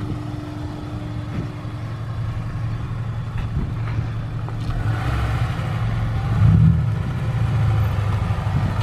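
Car engine running, swelling louder about six seconds in and then easing back.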